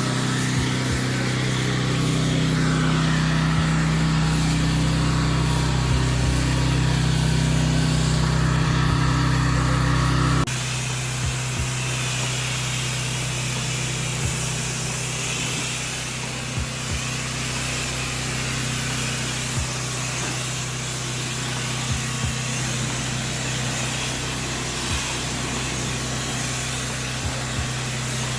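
Pressure washer running, its Honda GX390 engine humming steadily under the hiss of high-pressure water spraying onto pavers. About ten seconds in, the sound changes abruptly: the engine drops back and the spray hiss dominates, with scattered light ticks.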